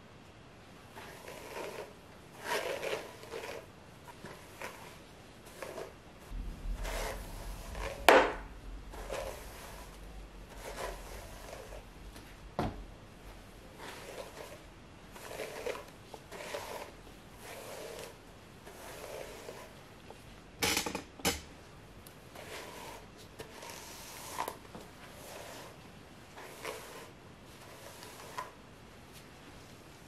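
Detangling brush drawn repeatedly through long wet hair, a soft swishing stroke roughly once a second. A few sharp clicks from the brush being handled stand out, the loudest about eight seconds in.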